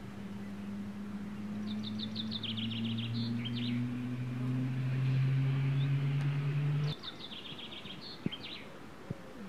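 A low, steady drone with a slowly rising pitch, like a distant engine, that cuts off suddenly about seven seconds in. A small bird sings a fast trilled phrase over it twice, and two short sharp knocks come near the end.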